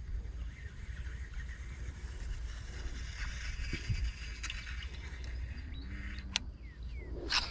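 Outdoor ambience: a steady low rumble with faint bird chirps, a light click about six seconds in and a sharper, louder snap near the end.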